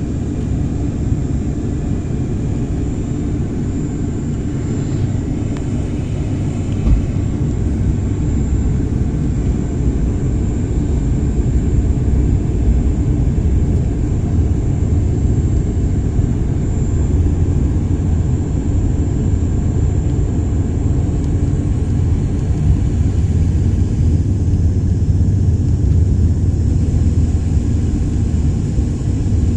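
Propeller plane heard from inside the cabin: a steady low drone of engines and propellers with a faint steady high whine above it, growing a little louder about twelve seconds in.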